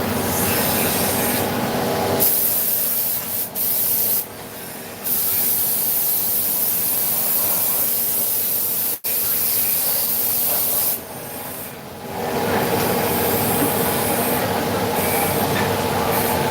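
Vertical machining centre (CNC mill) running: a steady loud hiss over a hum of steady machine tones, easing off briefly a few times and cutting out for an instant about nine seconds in.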